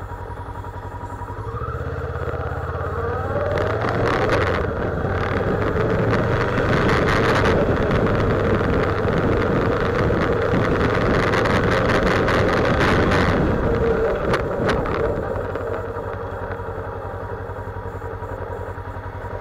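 Motorcycle engine running on the move, with wind rushing over the onboard camera's microphone. The engine note and wind noise build over the first few seconds, hold steady at speed, then ease off about three quarters of the way through as the bike slows.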